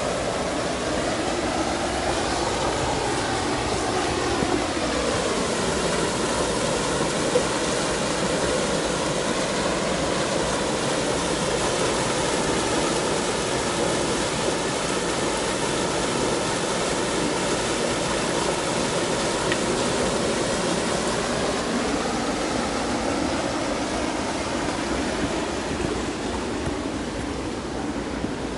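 Steady rush of a stream pouring over a rocky cascade, easing off a little near the end.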